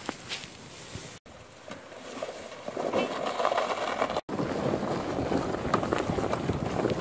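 Footsteps crunching in snow and a loaded sled dragging over snow and ice, with wind on the microphone; louder from about three seconds in, and broken twice by short sudden gaps.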